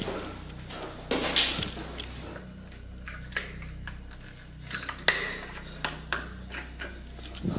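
An old plastic wall tap twisted by hand: a series of separate clicks and short scrapes from its handle, with a sharp click about five seconds in. No water runs from it.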